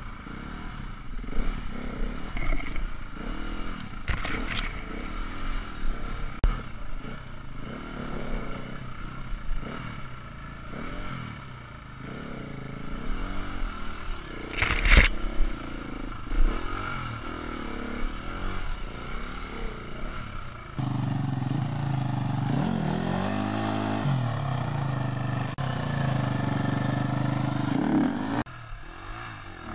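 Enduro dirt bike engine running and revving as the bike picks over a rough rocky trail, with clattering and two sharp knocks. About two-thirds through, a louder Husqvarna enduro bike engine revs up and down hard on a steep rocky climb.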